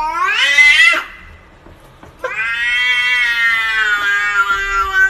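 Domestic cat meowing in two long, drawn-out yowls: the first rises in pitch and breaks off about a second in, and the second, starting about two seconds in, is held for several seconds.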